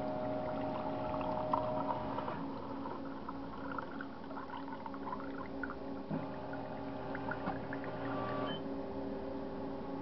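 Van Houtte coffee machine brewing a cup: a steady motor hum with irregular gurgling and clicking of hot water running through the brewer, the sound changing about two seconds in and again about six seconds in.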